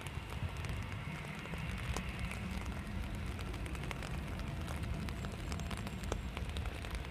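Rain falling, with scattered drops ticking sharply, over a steady low rumble.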